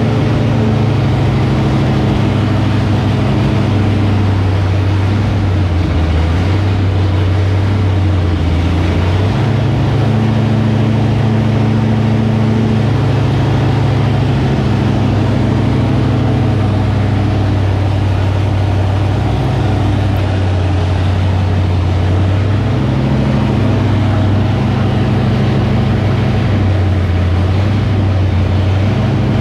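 Freshly built Ford 351 Cleveland V8 with a Comp Cams Thumper camshaft running steadily through its camshaft break-in. The engine speed rises and falls a little every few seconds.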